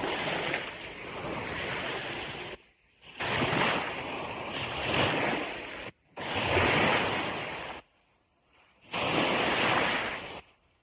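Ocean surf breaking and washing up a beach, a steady hiss that swells and ebbs, cut four times by sudden drops to near silence.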